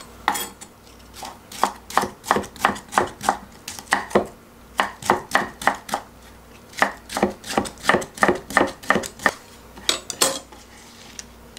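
Chef's knife slicing cucumber into thin strips on a thick wooden chopping board: quick knocks of the blade on the wood, about four a second, in runs with short pauses between.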